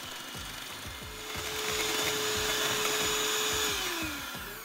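Electric hand mixer running, its twin beaters whipping cream in a stainless steel bowl: a steady motor whine with a whirring rush that grows louder about a second in. Near the end the whine falls in pitch and fades as the mixer slows.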